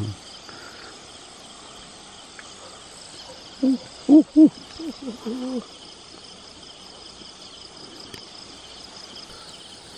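Steady night insect chorus of crickets trilling, with a brief run of short, low, pitched calls a little before the middle.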